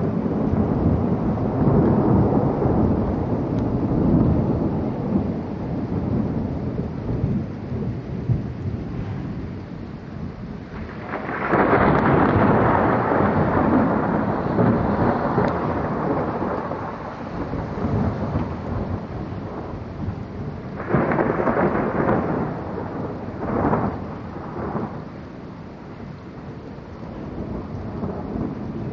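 Thunder in a heavy storm with rain falling: a long rolling peal at the start, a sharper clap about eleven seconds in that rumbles on for several seconds, then a few shorter cracks in the last third.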